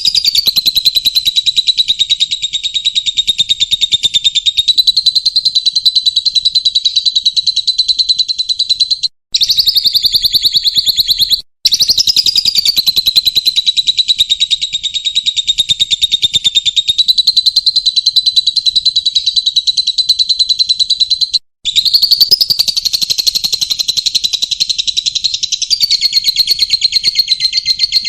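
Small cage bird's rapid, unbroken chattering song, a dense run of very fast high chirps, spliced from recorded loops with brief cut-outs about a third of the way in and again near two thirds, as used for a bird-song training (masteran) track.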